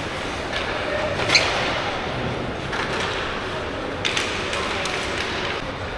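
Steady background noise with faint voices in it and a few sharp taps or knocks, the loudest about a second and a half in and another about four seconds in.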